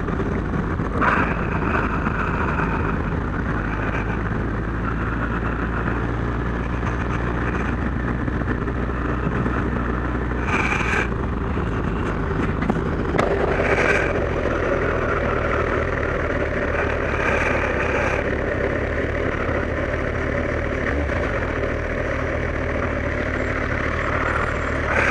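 Kawasaki GPZ1100's inline-four engine running steadily under way. The engine note shifts about halfway through.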